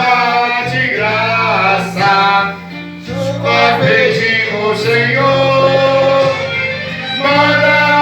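A man singing a Portuguese hymn to guitar accompaniment, over sustained low chords.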